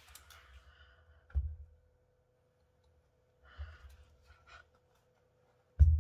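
The engine is stopped. There are handling noises: three short dull thumps, the loudest near the end, with small rustles and a faint steady hum underneath.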